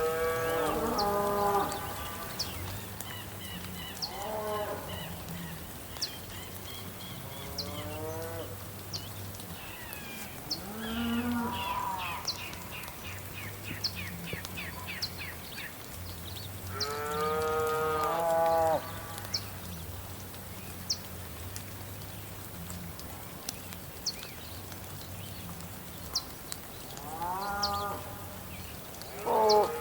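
Cows mooing, about six long, drawn-out calls in turn, the loudest about two-thirds of the way through, over a steady soft hiss of light rain with faint high ticks.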